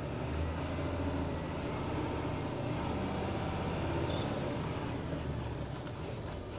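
Diesel truck engine running steadily as the truck drives on, a low, even hum heard from inside the cab, easing slightly near the end.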